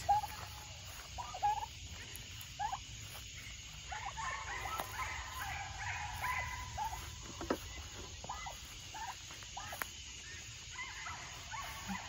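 Domestic turkeys calling from inside a pen: short separate calls, with a denser run of calls about four to seven seconds in.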